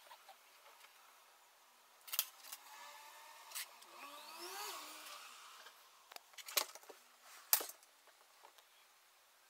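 A cat gives a short call that rises and falls in pitch about four seconds in, amid several sharp taps and clicks.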